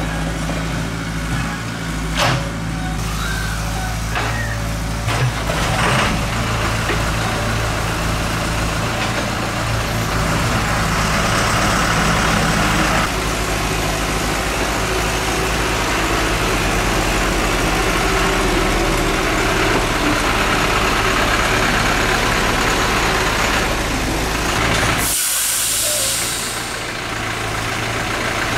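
Excavator's diesel engine running steadily as it digs and loads earth, with a few sharp knocks in the first six seconds. A brief hiss comes about 25 seconds in.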